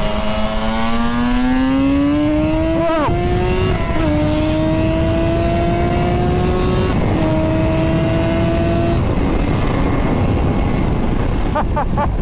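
Suzuki RG500 square-four two-stroke engine pulling hard under acceleration. Its note climbs in pitch and drops sharply with an upshift about three seconds in and again at about seven seconds, then fades under wind rumble near the end.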